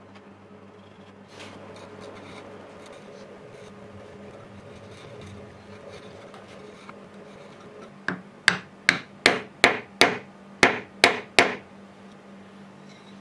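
Quiet scraping of a chisel paring the tenon on a wooden hammer handle. About eight seconds in, it gives way to about nine sharp knocks in quick succession as the handle is driven down into its brass hammer head.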